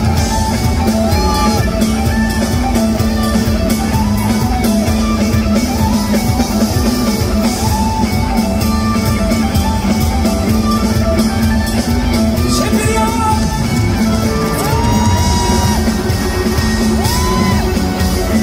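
Live rock band playing loudly, with drums, bass and electric guitar, as heard from inside the audience through a phone microphone. Fans shout and sing along over the music.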